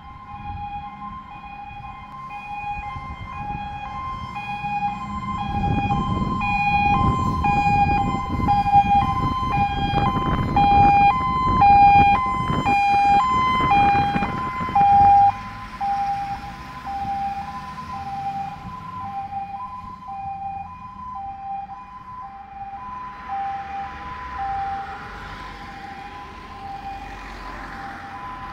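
Fire engine's two-tone siren sounding continuously, alternating between a high and a low note. The truck's diesel engine and tyre noise swell as it approaches and passes close in the middle of the clip, then drop away while the siren carries on more faintly as it drives off.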